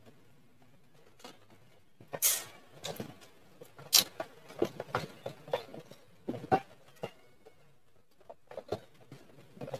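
Eating sounds: a string of short crunches, smacks and chewing noises as bites of spicy octopus wrapped with lettuce, herbs and cucumber are taken and chewed. The loudest sound comes about two seconds in.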